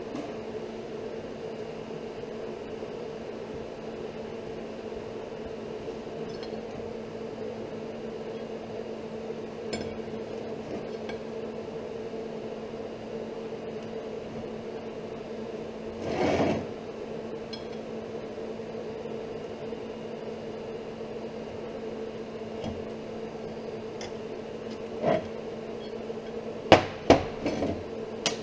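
Steel plate and angle-iron pieces handled on a steel workbench over a steady low workshop hum. There is one brief knock about halfway through, and a quick run of sharp metal clanks near the end as the pieces are set down and moved against each other.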